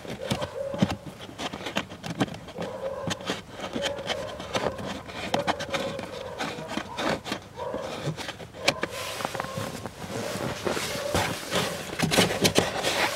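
Hands refitting a car's foam-backed under-glovebox trim panel and turning its plastic wing nuts: a busy run of small plastic clicks and knocks, with rubbing and rustling.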